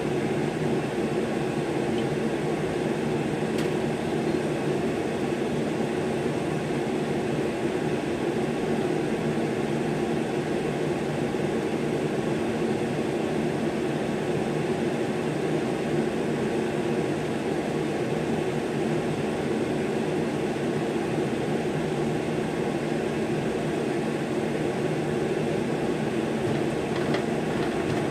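A machine running with a steady, even drone that does not change, with a few light clicks near the end.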